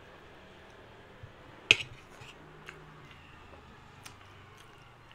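A metal spoon clinks sharply once against a steel plate about a second and a half in, with a few faint clicks of cutlery around it.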